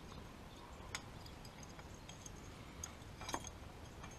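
A few faint clicks as a catch-can mounting bracket and its bolt are handled and lined up against the engine's cylinder head: one about a second in, then two close together near the end, the last the loudest.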